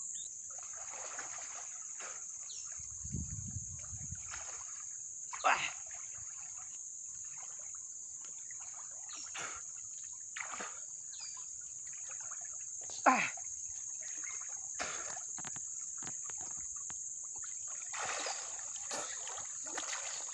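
Water splashing and sloshing in irregular bursts as a person wades and swims through fast-flowing muddy floodwater. The loudest splash comes about two-thirds of the way through. Under it runs a steady high-pitched insect drone.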